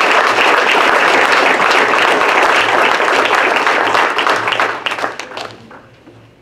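Audience applauding: dense clapping that dies away about five seconds in, leaving a few scattered last claps.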